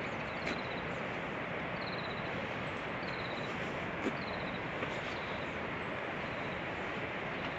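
Steady outdoor background noise with a small bird calling over it again and again, each call a quick run of high notes falling in pitch.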